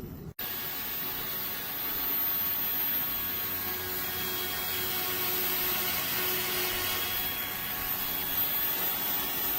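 Small electric RC airplane's motor and propeller whirring steadily in flight, after a brief dropout just at the start.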